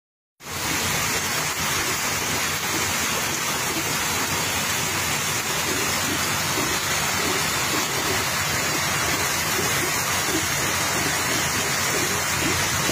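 Heavy rain falling together with a torrent of floodwater rushing down a street, heard as one steady rushing noise that starts about half a second in.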